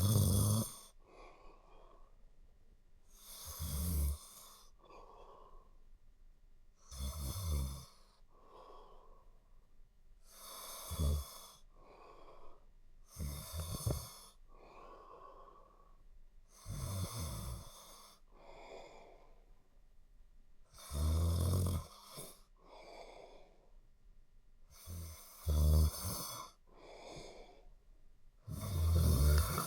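A person snoring deeply: a loud, rough snore about every three to four seconds, with a softer breath between each.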